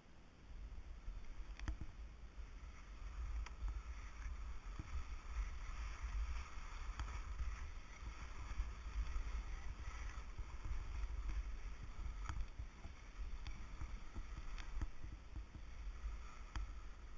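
Wind rumbling on the camera microphone while edges hiss and scrape over packed groomed snow on a downhill run, with a few sharp clicks from the gear.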